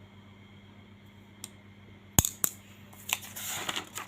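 A few sharp clicks or taps, the loudest a little after two seconds in, then about a second of rustling and scraping with more clicks, like objects being handled on a desk.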